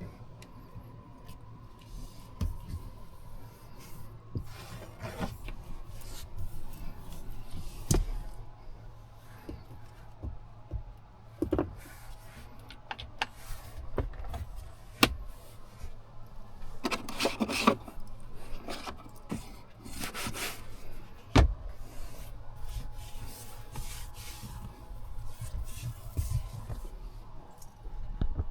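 Rubbing and scraping handling noise with scattered sharp clicks and knocks, the loudest knock about three quarters of the way through, over a steady low hum.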